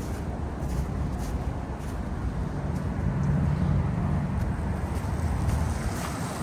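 City street traffic: a steady low rumble, with a passing motor vehicle's engine hum growing louder about halfway through.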